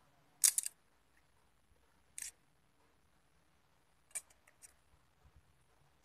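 Large scissors snipping through a small plastic cap: three sharp cuts, the first, about half a second in, the loudest, then a few small clicks near the end.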